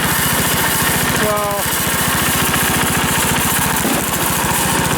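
Bolens H14 garden tractor's engine running steadily, with an even, rapid firing beat.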